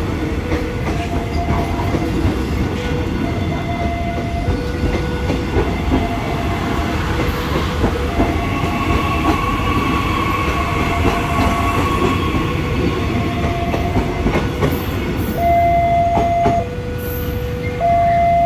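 Electric commuter train running past at close range with a steady rumble and wheels clattering over the rails. Under it, a level-crossing warning alarm alternates between a higher and a lower tone, and it becomes much louder and clearer near the end, once the train has gone by.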